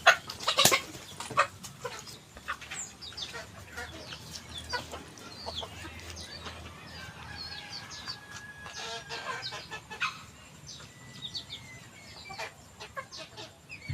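Chickens clucking, with scattered sharp clicks and knocks, the loudest in the first second.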